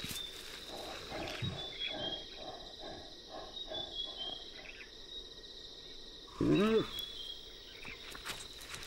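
Bush ambience with a steady high insect buzz and a run of soft repeated calls. About six and a half seconds in comes one short, loud wild-animal call that rises and then falls in pitch.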